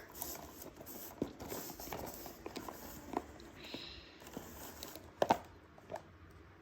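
Scattered soft taps and clicks from a homemade cardboard-and-plastic capsule machine being handled, with one slightly louder tap about five seconds in.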